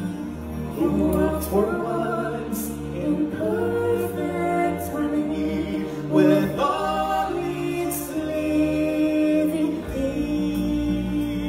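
Stage-show music: voices singing, choir-like, over a sustained accompaniment, swelling loudest a little past the middle.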